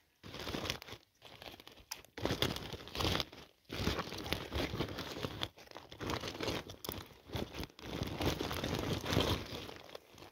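A woven plastic sack crinkling and rustling in irregular bursts as a hand shifts the freshly caught fish inside it.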